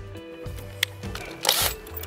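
Background music with a steady bass line. A sharp click comes a little under a second in, and a short burst of noise about a second and a half in.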